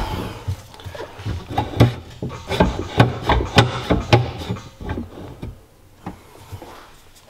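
Irregular metal knocks and clunks from hand work on a jet ski engine's motor mount during shimming and alignment, dying away after about five seconds.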